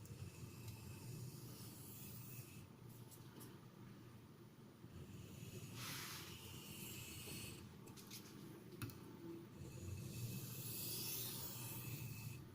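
A CTS XHP steel knife edge being drawn across a hard natural sandstone sharpening stone, making light passes to form a micro bevel. It is a faint scraping hiss in a few long strokes, with small clicks between them.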